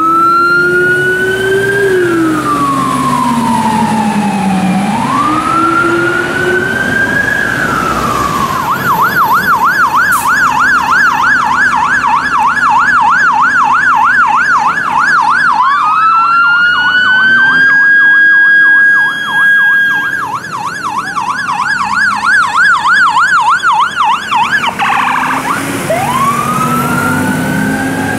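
Fire appliance electronic sirens. A slow wail sweeps up and down, switching about eight seconds in to a fast yelp. Partway through, a second siren's wail rises and holds over the yelp, and near the end a fresh wail starts up.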